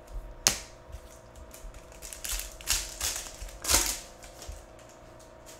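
Foil wrapper of a trading card pack being torn open and crinkled in the hands: a sharp snap about half a second in, then a run of crackling rustles.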